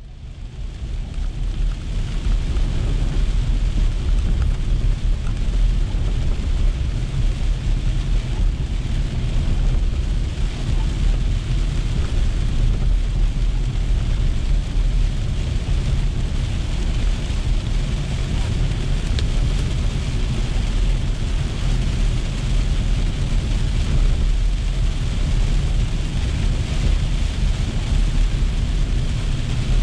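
Steady road and engine rumble inside a car driving through heavy rain, with rain hitting the windshield. It fades in over the first second.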